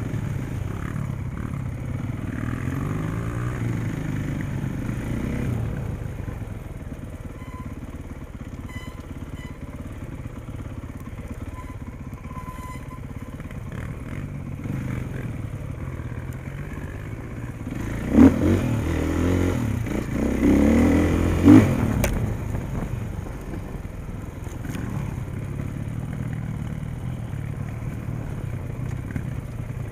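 KTM 450 dirt bike's single-cylinder four-stroke engine running under the rider, its pitch rising and falling with the throttle. About two-thirds of the way through there is a louder stretch of harder revving, with two sharp knocks.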